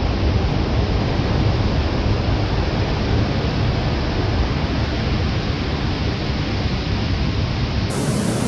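Steady, unbroken roar of ocean surf, with wind rumbling low on the microphone.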